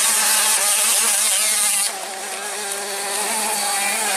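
Small two-stroke 65cc motocross bike engine buzzing at high revs, its pitch wavering with the throttle. It drops in level about two seconds in and carries on more distantly.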